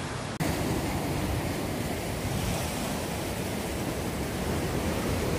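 Ocean surf washing and breaking against shoreline rocks, a steady rushing noise, with a brief drop-out at an edit cut less than half a second in.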